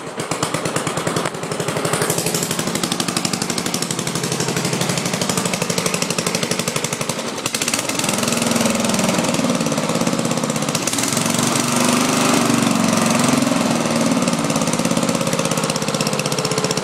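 Murray riding mower's small engine running with a fast, even chug. From about eight seconds in, its speed rises and falls as the throttle is worked through a home-made gas pedal.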